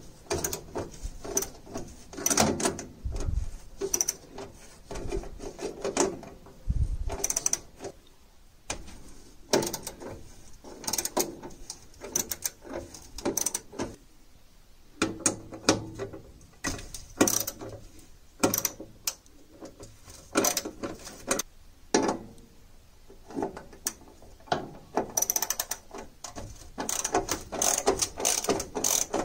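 Ratchet wrench clicking in irregular bursts, with short pauses, as screws are loosened on a furnace's draft inducer motor housing.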